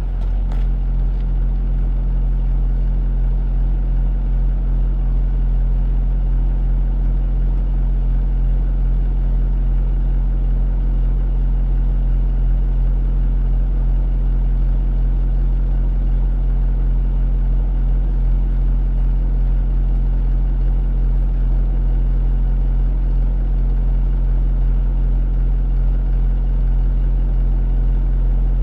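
Tow truck engine idling steadily, a constant low hum with no change in speed.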